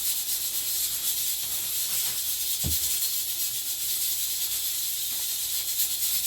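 A steady high hiss, with a single short low knock about two and a half seconds in.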